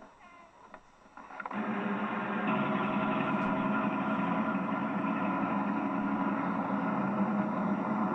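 A vehicle engine comes in about a second and a half in and then runs steadily at an even pitch.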